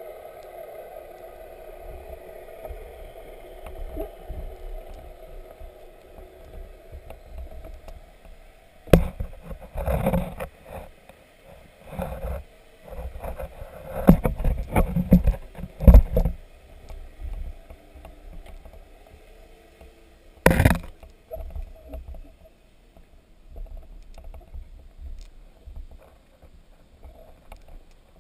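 Dull knocks and scrapes picked up underwater as the camera bumps along a sunken boat's hull. They come in clusters about nine to sixteen seconds in, with one sharp knock about twenty seconds in. A steady hum fades out over the first several seconds.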